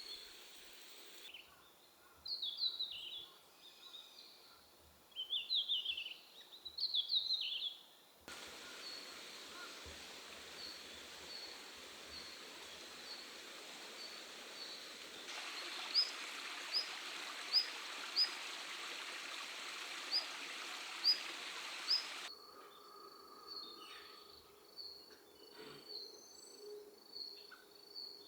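Red-flanked bluetail calling: short, high, thin notes, some rising, repeated about once a second over a steady hiss of background noise. Early on, three brief bursts of twittering bird song are louder than the calls.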